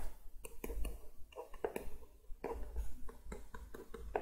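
Pen stylus tapping and scratching on a drawing tablet as words are handwritten: a run of small irregular clicks and short scrapes.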